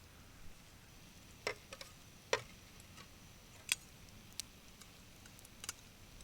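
Wood fire crackling: a handful of sharp, irregular snaps over a faint steady background.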